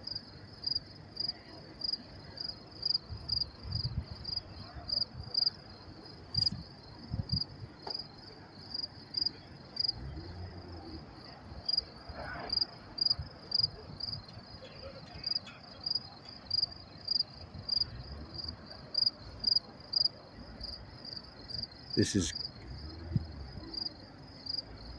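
Crickets chirping: a steady, even run of high-pitched chirps, with one sharp click a few seconds before the end.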